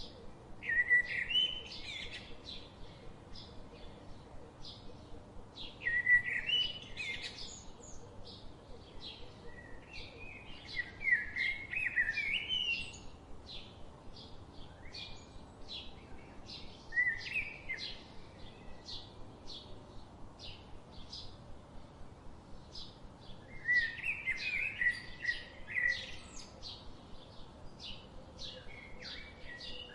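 Birds singing: short warbled song phrases come every few seconds over a steady run of quick, high chirps, about two or three a second.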